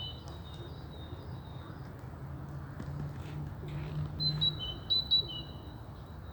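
A small songbird singing thin, high whistled notes at two alternating pitches: one phrase at the start and a louder one a little past the middle. A steady low rumble runs underneath.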